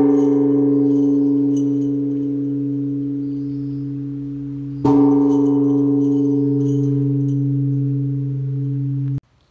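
Large Japanese temple bell struck twice, at the start and again about five seconds in. Each strike rings on in a deep, steady hum with higher overtones that slowly fade, and the sound cuts off suddenly near the end.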